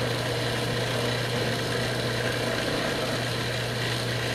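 Food processor motor running steadily with a constant hum as its blade works flour and boiling water into a crumbly dough.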